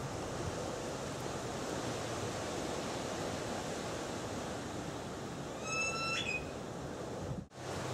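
Bamboo fire saw rubbed against a bamboo fire board to make an ember: a steady friction noise, with a short high squeak about six seconds in. The sound cuts off abruptly near the end.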